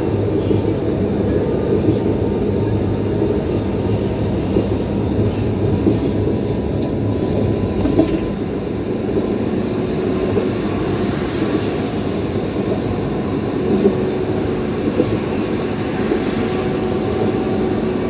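Street tram running along its rails, a steady rumble with a faint steady whine over it.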